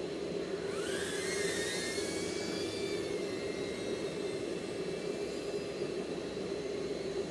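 Makerfire Armor 65 Plus brushed tiny whoop drone's motors spinning up for takeoff, with a whine rising in pitch about a second in. It then holds a steady high whine that fades as the drone flies off.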